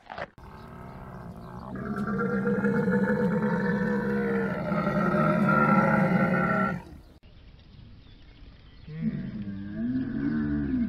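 Dromedary camel calling: one long, low call lasting about six seconds, then, after a short gap, a second, shorter call with a wavering pitch near the end.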